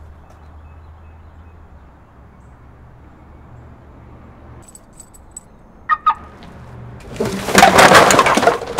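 A heap of trash on a car seat (soda cans, plastic bottles and bags) being shoved around, clattering and rustling loudly for about a second and a half near the end. Before it there is a low hum, with a few short high chirps and two sharp squeaks about five to six seconds in.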